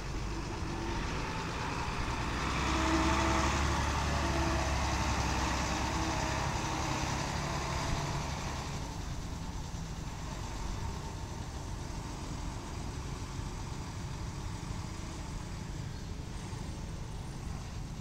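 Heavy-machinery engine running steadily, growing louder over the first few seconds with a rushing noise on top, then settling to a quieter, even run after about eight seconds.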